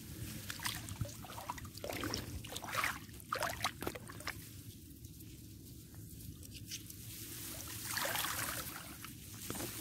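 Muddy water sloshing and splashing in irregular bursts as a person wades through a flooded ditch. A steady low rumble runs underneath.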